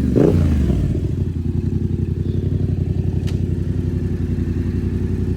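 Yamaha MT-07's parallel-twin engine through a Kelpi shorty aftermarket exhaust: a quick blip of the throttle right at the start, then a steady, evenly pulsing idle.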